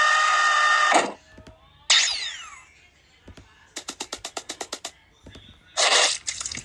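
A string of separate short cartoon-style sound effects: a loud noisy burst lasting about a second, a brief sound with pitches gliding up and down about two seconds in, a quick run of about a dozen clicks around four seconds, and another short loud noisy burst near the end.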